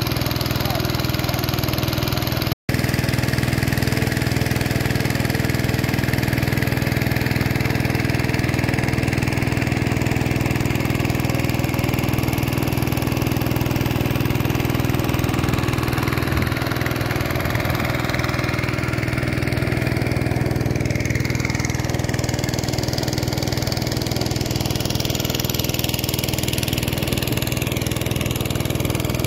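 Small engine running steadily at a constant speed, a continuous hum that never changes pitch. It drops out for an instant about two and a half seconds in.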